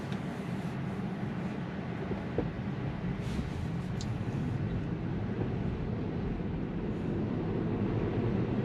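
Inside the cabin of a Tesla electric car driving on a rain-wet road: a steady rumble and hiss of tyres on wet pavement, growing slightly louder near the end as the car picks up speed.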